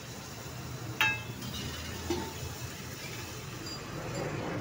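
A steel ladle clinks once against metal cookware with a short ring about a second in, followed by a softer knock, over a steady low hum.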